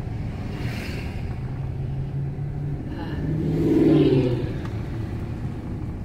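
Inside the cab of a 1998 Dodge 2500 pickup while driving: a steady low engine and road hum, swelling louder for a moment about four seconds in.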